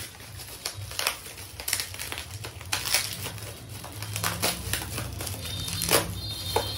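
Plastic packaging, bubble wrap among it, crinkling and crackling as it is pulled open by hand, in many irregular sharp crackles over a low steady hum.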